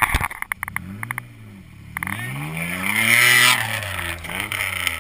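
4x4 SUV engine revving up and down several times under load as it climbs out of a creek up a steep bank. The longest and loudest rev comes about three seconds in, and a few sharp clicks sound in the first second.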